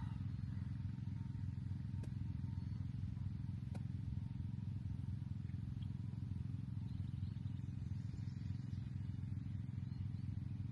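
A steady low engine hum runs throughout, with two faint sharp clicks about two and four seconds in.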